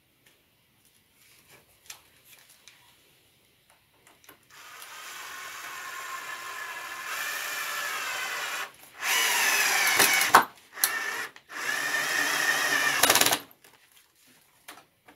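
Cordless drill-driver driving a screw into a wooden workbench leg. The motor starts about four and a half seconds in and runs steadily, then louder with its pitch dropping as the screw bites, stops and starts in a few short bursts, and cuts off about two seconds before the end.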